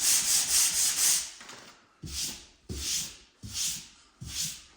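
Sandpaper scrubbing dried joint compound on a drywall patch by hand. About a second of steady scrubbing, then separate back-and-forth strokes with short gaps, about three strokes every two seconds.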